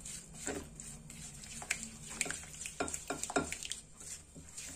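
Silicone spatula stirring powdered sugar and oil in a glass bowl, scraping and knocking against the glass in irregular strokes.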